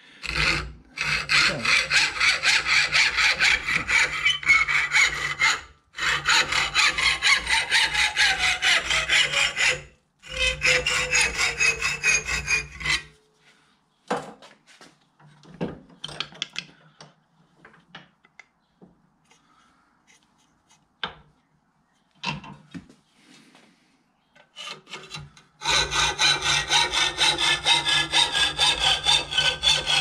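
Hacksaw cutting a thin metal strip clamped in a bench vise, with steady back-and-forth strokes. The sawing stops for about twelve seconds in the middle, leaving only scattered clicks and knocks, then resumes near the end.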